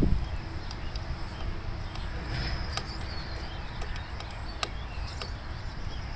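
Faint, scattered clicks of a screwdriver working the Torx screws on a metal handle bracket, over a low steady rumble, with a bird chirping briefly about two and a half seconds in.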